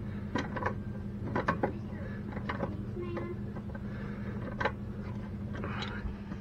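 Wrench tightening the nuts down on a toilet's closet bolts: scattered, irregular metal clicks and ticks.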